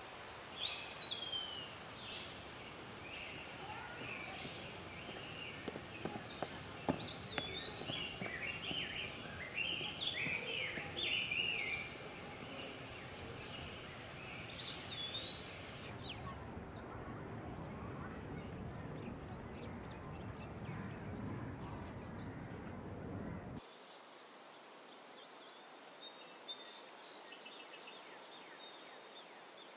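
Outdoor ambience with birds calling: many short whistled calls, several sliding down in pitch, over steady background noise. The background changes abruptly about sixteen seconds in and again, becoming quieter, about twenty-four seconds in.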